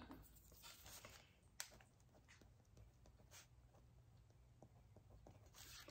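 Faint scratching of a coloured drawing pencil shading a swatch on sketchbook paper, with a couple of light taps.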